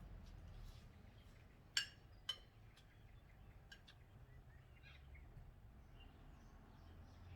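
Near-quiet outdoor background with faint bird chirps, broken by two sharp clicks about half a second apart a little under two seconds in.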